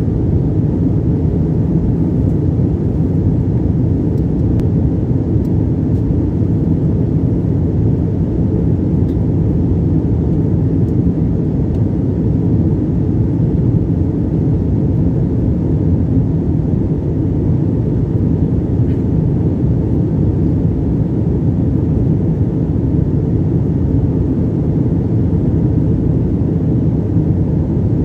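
Steady cabin noise of an Airbus A320-family jet airliner in cruise, heard from inside the cabin: an even, unchanging low rumble of engines and airflow.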